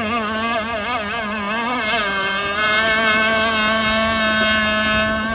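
Enforcer Stingray RC hydroplane's motor whining at speed. Its pitch wavers quickly during the turn, then settles to a steady, slightly lower note from about two seconds in as the boat runs straight.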